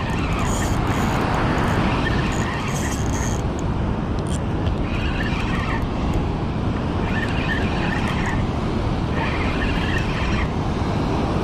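Spinning fishing reel being wound in, its gears whirring in short spells about every two seconds, over a steady rush of surf and wind on the microphone.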